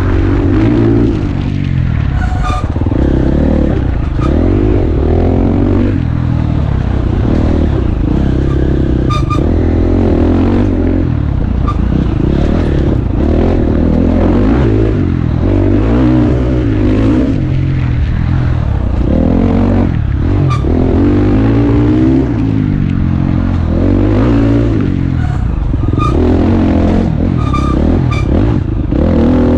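Dirt bike engine ridden hard, heard onboard: the revs climb and drop over and over with throttle and gear changes. A few short sharp knocks come through from the bike over the rough trail.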